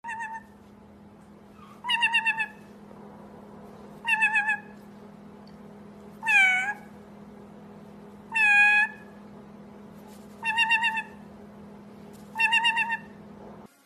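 White-bellied caique giving six meow-like calls, about one every two seconds, each a warbling cry of about half a second; the middle two bend up and down in pitch more than the others. A steady low hum lies underneath.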